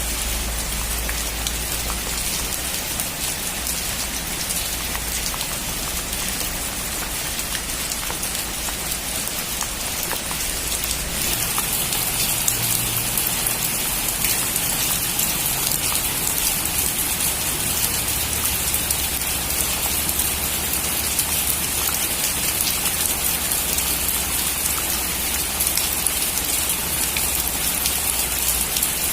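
Heavy rain drumming on a metal roof, a dense steady patter of drops that grows a little heavier about eleven seconds in.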